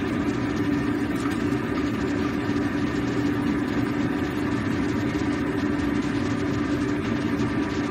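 A steady droning hum with a low tone and a hiss over it, the constant running noise of a home kitchen while a wok of soup cooks on a gas burner.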